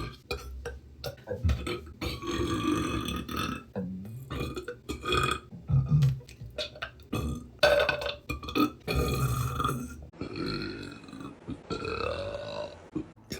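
A woman belching: several long, loud burps one after another, with short gaps between them.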